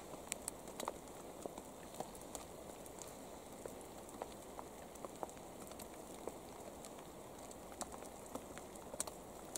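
Pouring rain: a faint steady hiss with irregular sharp ticks of single drops, one of the loudest near the end.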